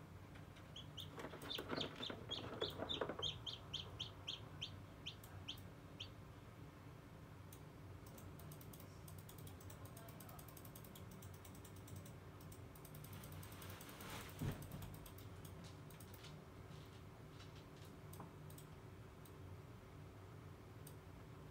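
A newly hatching chicken chick peeping: a quick run of about fifteen short high peeps over the first few seconds. After that come faint clicks and scratching with one louder scuffle about halfway through, over a steady low hum from the incubator.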